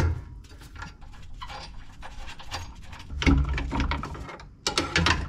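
Hand tools clicking and knocking on the car's rear suspension while a rear strut is unbolted, with a louder, lower stretch just past the middle and a run of sharp clicks near the end.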